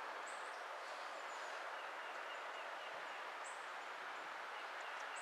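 Steady outdoor background noise with faint, short bird chirps scattered through; no engine running or cranking.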